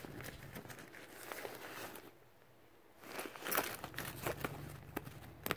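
Hands rummaging in a nylon backpack's zip pocket: the fabric rustles and crinkles, goes quiet for about a second, then keys on their keyrings are handled with a run of light clicks and clinks, one sharper click near the end.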